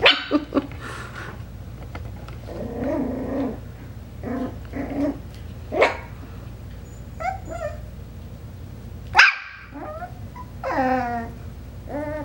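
Young Coton de Tulear puppies barking, yipping and growling at each other in play: a string of short, high calls, a low growl about three seconds in, and a longer whining yelp that falls in pitch near the end.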